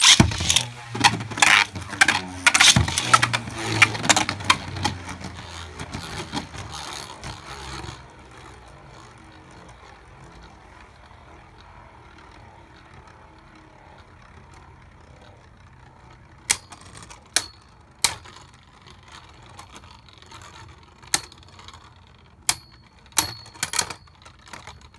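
Two Beyblade Burst tops in a plastic stadium, clashing and rattling hard for the first several seconds after launch, then settling into a steady spinning whir. Sharp single clicks of hits return now and then in the second half.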